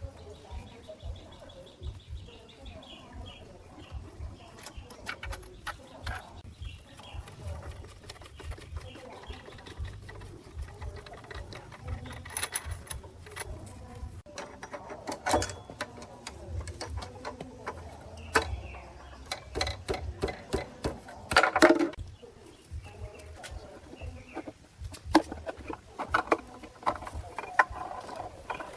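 Irregular clicks and knocks of hand work on metal parts, with a cluster of louder strikes about twenty-one seconds in.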